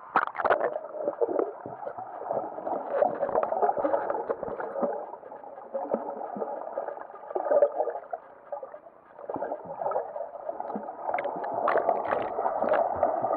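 Underwater sound heard through an action camera's waterproof housing: muffled bubbling and gurgling as snorkelling swimmers kick and move around. A splash comes right at the start as the camera goes under.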